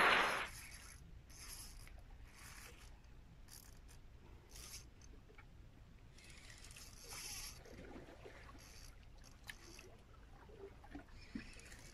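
Spinning fishing reel being wound, a faint ticking whir in short spells, with a few sharper clicks near the end.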